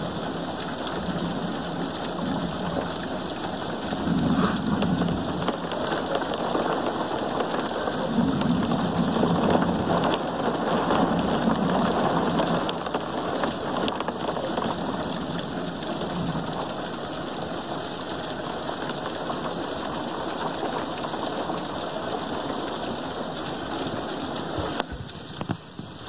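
Steady rain falling during a thunderstorm, with low thunder rumbling now and then: about four seconds in, again from about eight to twelve seconds, and faintly near sixteen seconds.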